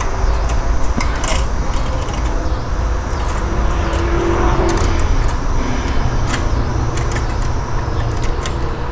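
Light clicks and rattles of metal and plastic parts as the disc platters and a sheet-metal plate of a Blaupunkt 6-disc in-dash CD changer mechanism are handled and fitted back in place, over a steady low rumble.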